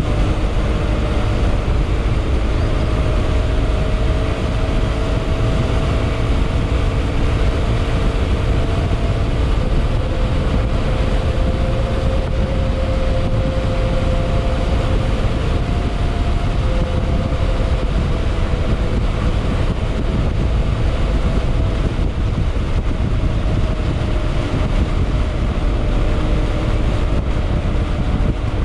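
Yamaha XMAX scooter's single-cylinder four-stroke engine running at a steady cruise on the move, its tone drifting gently up and down. A heavy low rumble of wind and road noise sits under it.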